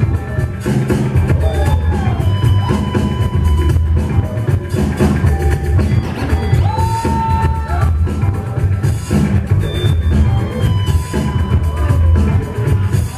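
Loud breakbeat music with a heavy drum beat and bass, and short horn- or synth-like melodic lines over it: a funk-style break played for breakdancing.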